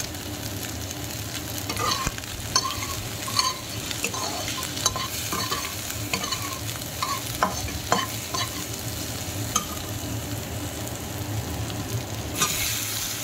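Sliced onions sizzling in oil in a frying pan, nearly browned, as a flat metal spatula stirs them, scraping and clicking against the pan at irregular moments. The sizzle grows louder near the end.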